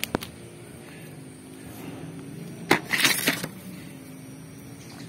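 Hands picking chili peppers off a potted chili plant. Two sharp clicks at the start, then a louder cluster of snaps and leaf rustling about three seconds in, over a faint steady background hum.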